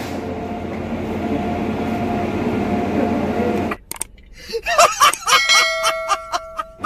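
Steady background noise, then a sudden cut about four seconds in to a man's loud, hearty laughter in short bursts over a held tone.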